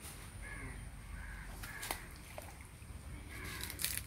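Birds calling outdoors, a string of short repeated calls, with two sharp clicks, one about two seconds in and one near the end.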